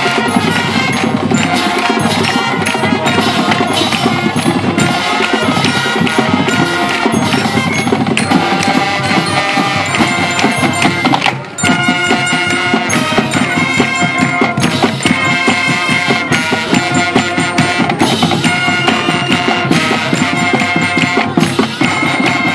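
High school marching band playing: brass, including sousaphones, over a beat from snare and bass drums.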